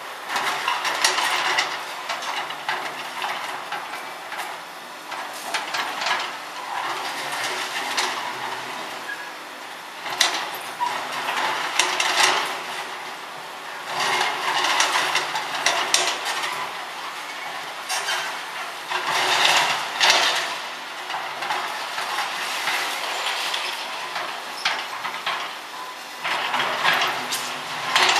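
Steady machinery noise with repeated metallic clattering and clanking, swelling louder every couple of seconds.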